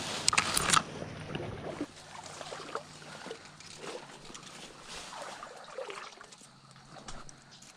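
Wading through shallow creek water: sloshing and splashing steps, loudest in the first second, then softer water movement and small ticks.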